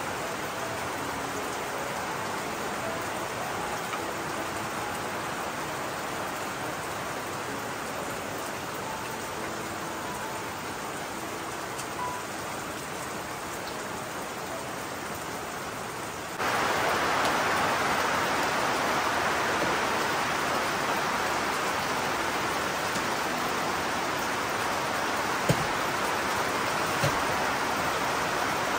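Steady rain falling, an even hiss. About sixteen seconds in it jumps suddenly to a louder, closer hiss, with two light knocks near the end.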